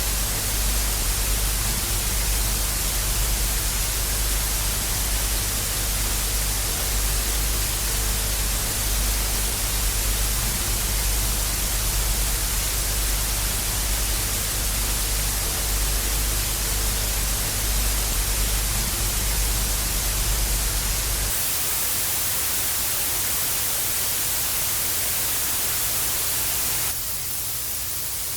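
Analog TV static: a steady hiss with a low hum underneath. About three quarters of the way through it cuts to a plainer, brighter hiss without the hum, and near the end it switches to a slightly quieter hiss.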